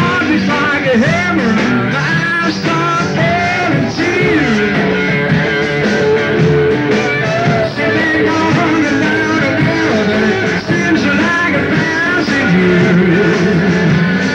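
A rock song played live by a band, with a lead voice singing over the instruments.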